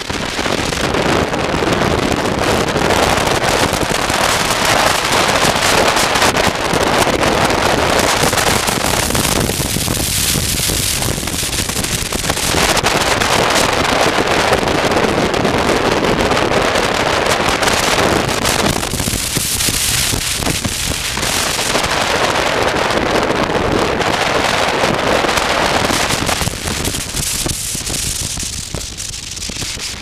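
Wind rushing and buffeting over a helmet camera's microphone on a moving motorcycle, a dense crackling roar that eases off briefly three times.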